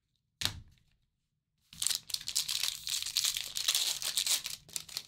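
A trading-card pack wrapper being torn open and crinkled for about three seconds, after one short knock about half a second in.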